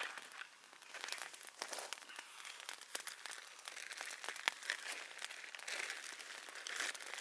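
A bag crinkling and rustling as it is handled, with scattered small clicks and crackles.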